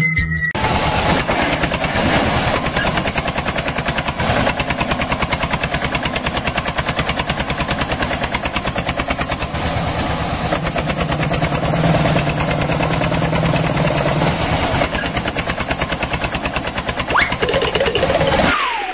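Small engine of a mini tractor running, a rapid, even putter of firing pulses at a steady level, which stops suddenly near the end.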